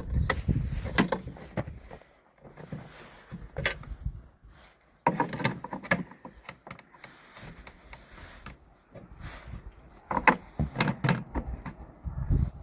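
Irregular clicks and knocks of metal brackets and hardware being handled and fitted onto a frame, with a sudden louder scraping stretch about five seconds in.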